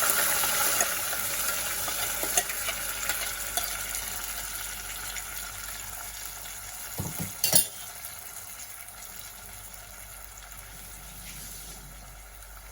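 Ground red chilli, tomato and onion chutney paste sizzling as it hits hot sesame oil with a mustard and urad dal tempering. It is being stirred, the sizzle loud at first and dying down steadily. A couple of sharp spoon knocks against the pan come about seven seconds in.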